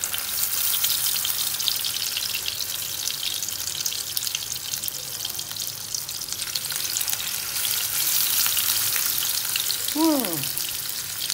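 Marinated vegetarian mock-meat pieces sizzling and crackling in hot oil in a frying pan. Near the end a short vocal sound falls in pitch.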